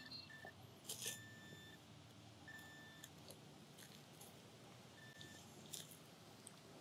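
Faint beeps from a handheld pinpointer, four of them at one steady pitch and of uneven length, as it is worked around a hole in the soil to locate a buried metal target. Faint scratching of soil and gloves near the start and near the end.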